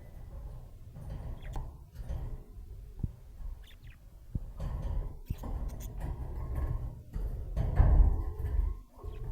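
Low rumbling and scuffing with a few sharp knocks, with a couple of faint, short budgerigar chirps about three and a half seconds in.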